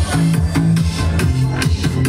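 Electronic dance music playing through loudspeakers, with a steady beat over a deep, moving bass line.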